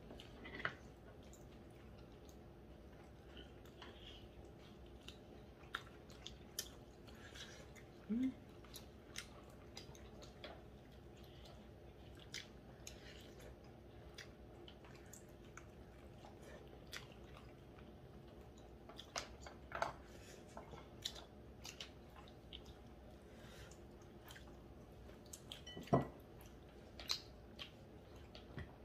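Close-up eating sounds of chewing and gnawing meat off braised pork back bones, with scattered small clicks and taps throughout and one louder tap near the end, over a faint steady hum.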